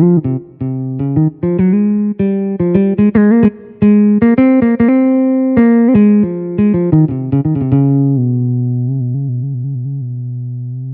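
Yamaha SHS-500 Sonogenic keytar playing a quick melody in a plucked-string tone over a held low note, with reverb. About eight seconds in it settles on a long held note that wavers in pitch.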